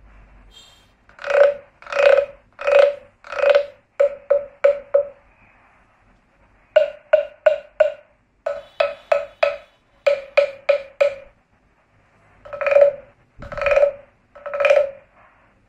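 Wooden frog guiro played with its stick: the stick scraped along the frog's ridged back gives a hollow, pitched wooden croak. Four slow croaks, then quick short croaks in runs of four or five, and three slow croaks again near the end.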